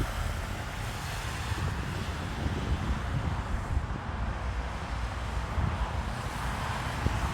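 Wind buffeting the microphone in uneven low rumbles over a steady hiss of outdoor background noise.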